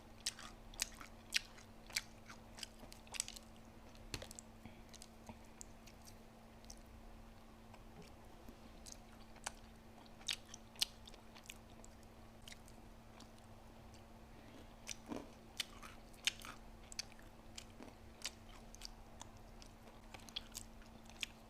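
A person eating McDonald's food: chewing and biting, with scattered sharp mouth clicks and light crunches. A faint steady hum runs underneath.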